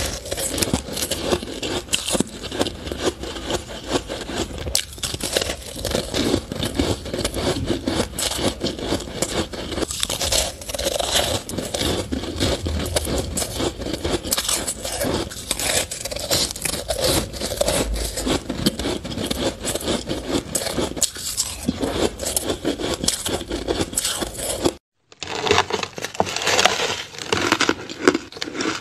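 Close-miked biting and chewing of purple crushed ice: a dense, continuous run of crisp crunches and crackles. The sound drops out for a moment about 25 seconds in at an edit, then the crunching goes on.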